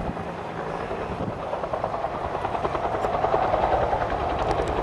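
Engine and twin propellers of a Wright B Military Flyer replica in flight, a steady fast pulsing drone that grows slightly louder.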